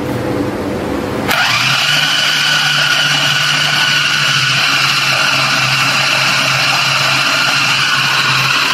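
Electric food chopper running, its blade mincing raw beef: a steady motor whine that steps up suddenly to a louder, higher sound about a second in and then holds.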